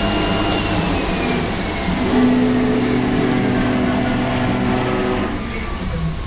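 CNC cutting machine running: a steady mechanical hum with a whine that slowly falls in pitch.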